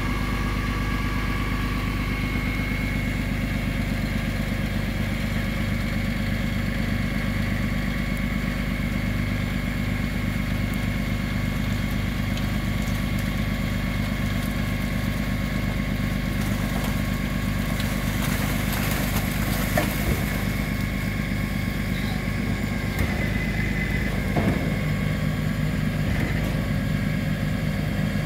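DAF food waste truck's diesel engine running steadily while its raised tipping body empties into a skip, with a steady high whine. A few light knocks come in the second half.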